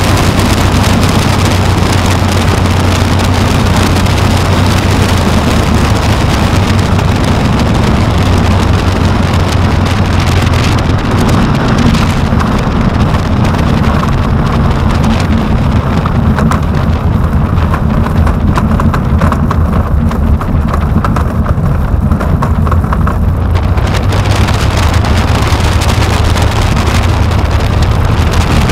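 Aeronca Chief's engine running at low power with wind on the microphone as the taildragger comes down onto a grass runway. From about halfway through, an irregular rattling is heard as the wheels roll over the turf, and the wind hiss eases off for several seconds.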